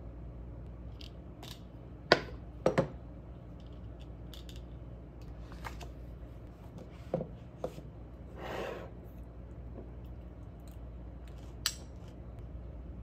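A thick paperback book handled on a desk: a few knocks as it is picked up and set down, the loudest about two and three seconds in, then a short rustle of pages being flipped. A light clink near the end.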